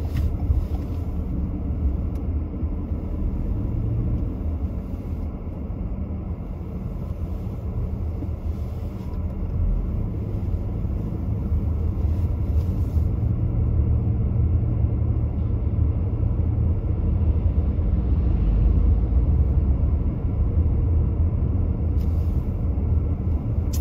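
Low, steady rumble of a car's engine and tyres heard from inside the cabin while driving; it grows a little stronger about halfway through.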